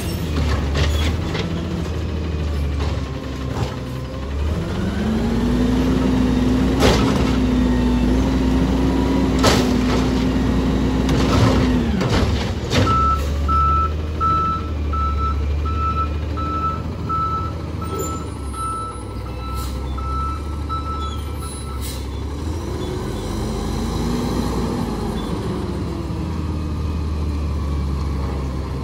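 Automated side-loader garbage truck at work: its diesel engine revs up and holds with a steady whine while the hydraulic arm dumps a cart, with three loud bangs as the cart and trash slam into the hopper. Then its backup alarm beeps steadily for about eight seconds, and the engine revs again as the truck moves off.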